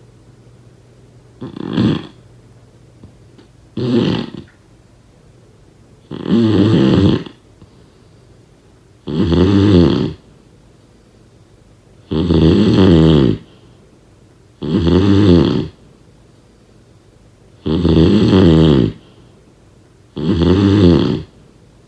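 Steady snoring: eight rattly snores about every two and a half to three seconds, the first two short and the rest about a second long each.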